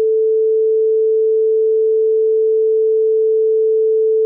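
Steady 440 Hz sine-wave test tone played back from a DAW, one pure unwavering pitch. It is one step in a series raised 3 dB at a time, and this step stands for a listening level safe for only 30 minutes.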